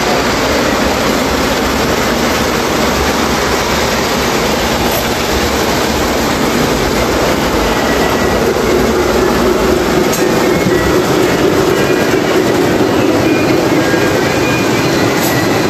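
Lionel O-gauge model trains running on the layout's track: a steady noise of wheels and motors that grows a little stronger about halfway through.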